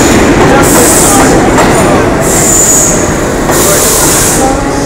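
Vintage New York City subway train running past along an underground station platform: loud, steady rumble of wheels on rail, with a high wheel squeal about two seconds in.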